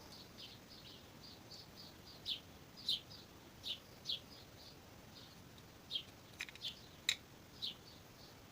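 Small bird chirping faintly, a series of short, high, falling chirps at irregular intervals, with one sharper click about seven seconds in.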